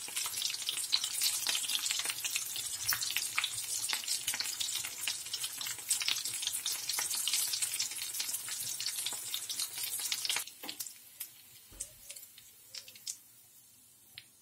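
Aloo chops (potato chops) shallow-frying in hot oil: a dense sizzle thick with fine crackles. About ten seconds in, the sizzle drops away suddenly to faint, and a few light clicks and knocks follow.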